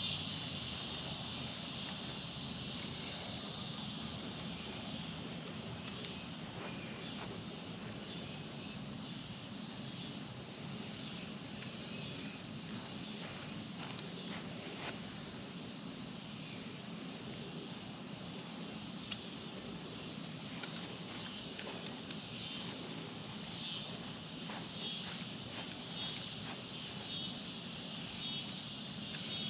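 Steady chorus of insects: a high drone with a fine pulsing texture that holds throughout. A few faint clicks sound now and then.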